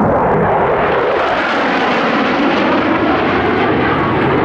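A pair of Mitsubishi F-2 fighter jets flying past overhead, their single F110 turbofan engines giving a loud, steady jet noise.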